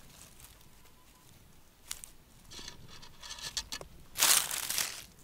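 Dry pine needles and dead leaves rustling and crackling as a hand rakes through forest-floor litter. A single snap comes about two seconds in, then scattered rustles, and the loudest rustle lasts about a second near the end.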